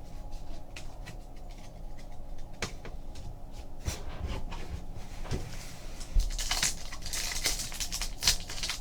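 Trading cards and foil pack wrappers being handled on a table: scattered light clicks and taps, with a denser stretch of rustling from about six seconds in.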